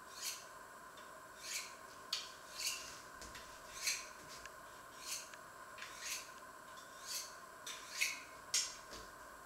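A kitchen knife being drawn along a honing steel: about eleven short metallic scraping strokes, roughly one a second and unevenly spaced, over a faint steady hum.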